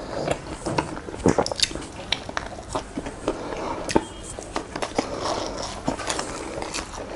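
Close-miked eating sounds: a person biting into and chewing a mouthful of soft jam-and-cream pastry, with irregular mouth clicks and smacks.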